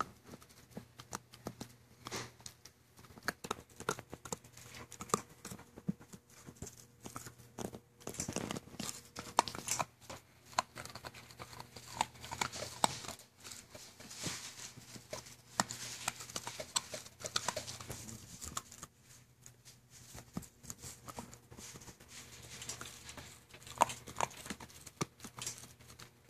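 Golden retriever puppy chewing on a plastic toothbrush: irregular clicking of teeth on the handle and scratchy rustling, coming in busy spells with quieter gaps between.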